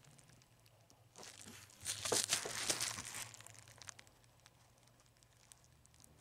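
Crinkling and rustling of crinkly material being handled, in two short bursts about one and two seconds in, with a few small clicks.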